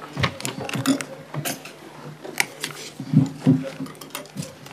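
Irregular clicks, taps and dull knocks of handling and movement, with a faint steady hum underneath.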